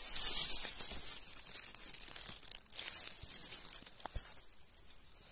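Dry, drought-parched barley stems and leaves rustling and crackling, loudest in the first second or so and fading toward the end.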